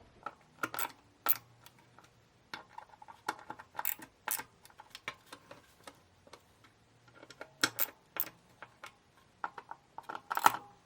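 Socket ratchet clicking in short irregular runs, with light metal clinks, as the bolts on a recliner's swivel base are snugged tight.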